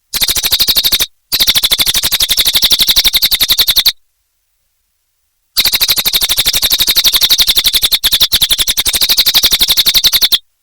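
Cililin songbird singing a very fast, even, high trill in three bursts: a short one, a longer one, and a long one starting a little past halfway.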